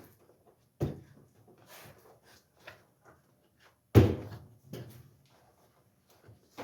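Plastic tub ring of a Whirlpool top-load washer being snapped onto the tub, its clips clicking into place one at a time. Two sharp snaps stand out, about a second in and about four seconds in, the second the loudest, with smaller knocks and clicks between.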